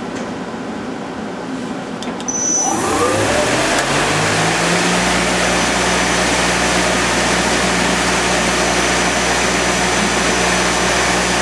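2005 Femco HL-25 CNC turning center's direct-drive spindle and chuck spinning up: about two seconds in, a rising whine climbs for a couple of seconds, then settles into a loud, steady whir with a thin high whistle at about 3600 RPM. The spindle sounds really good, a sign of healthy bearings and drive.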